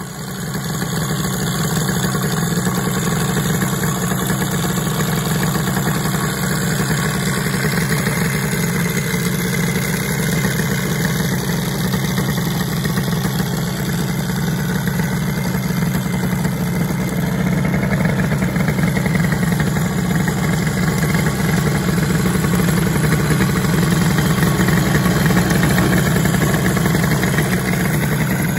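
MBK 51 Magnum Racing moped's 100 cc twin-cylinder two-stroke engine idling steadily.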